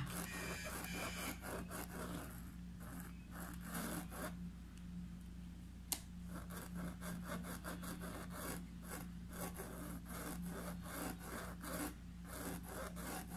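Small paintbrush scrubbing paint into cloth stretched tight in an embroidery hoop: runs of quick, repeated rubbing strokes, with one sharp click about six seconds in.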